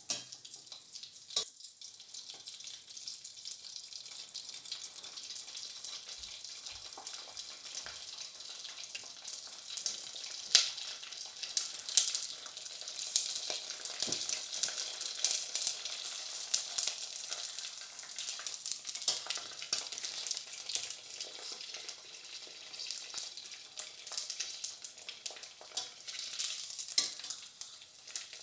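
Dried pig ear deep-frying in hot oil as it turns into pork crackling: steady sizzling peppered with sharp crackles and pops. The popping is busiest in the middle and again near the end.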